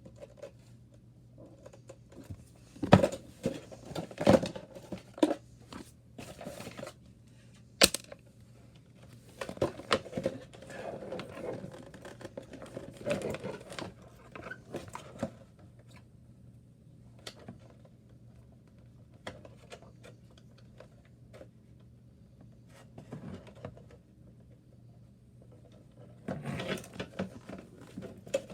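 Handling of headset packaging and parts at close range: scattered sharp clicks and taps, with short bursts of rustling and tearing and quieter gaps between.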